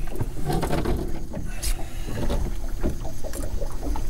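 Boat motor running steadily at trolling speed, with scattered small clicks and knocks as a crappie is unhooked from a crankbait with pliers; one sharp click about halfway through.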